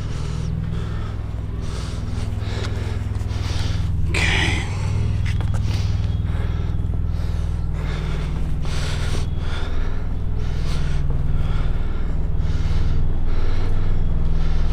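A truck engine idles as a steady low hum under footsteps and scuffing, about two a second, as someone climbs into a trailer and moves around in it. A loud, hard breath of effort comes about four seconds in.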